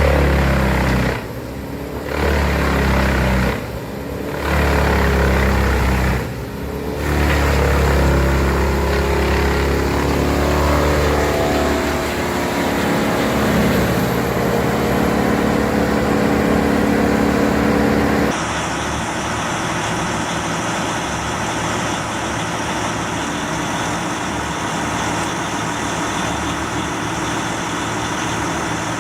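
Large wood chipper running loud, its engine note dipping briefly three times in the first seven seconds and shifting in pitch. About two-thirds of the way through, the sound switches abruptly to a steadier heavy machine drone.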